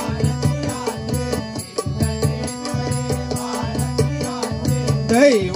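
Devotional bhajan accompaniment: a hand drum playing a repeating pattern under steady held chords, with small cymbals ticking evenly on the beat. A singer's voice swells up and falls back near the end.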